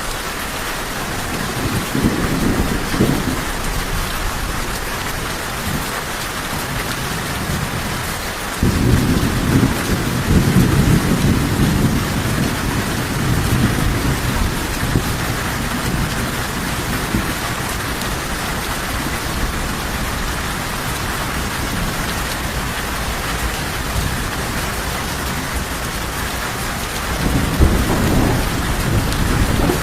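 Steady rain with rolls of thunder: a short rumble a couple of seconds in, a longer, stronger one that starts suddenly about nine seconds in, and another near the end.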